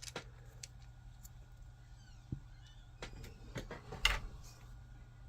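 Light clicks and taps of small 3D-printed plastic parts and a tiny screw being handled and fitted while assembling a figure's arm, with a cluster of taps between about three and four seconds in and the loudest just after four seconds.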